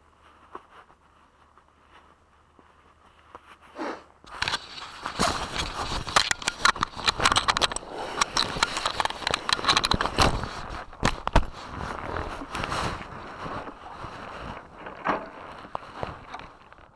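Low hum and near quiet for about four seconds, then a long stretch of rustling, scraping and crackling contact noise on the microphone, with sharp clicks around ten to eleven seconds in.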